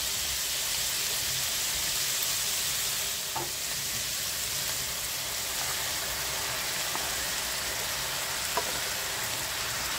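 Diced onions and ham frying in a pan, a steady sizzle, stirred with a wooden spoon, with a few light knocks of the spoon against the pan.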